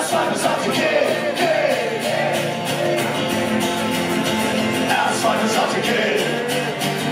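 Live band music from acoustic guitars strummed and plucked, with singing over it, recorded from among the audience at a concert.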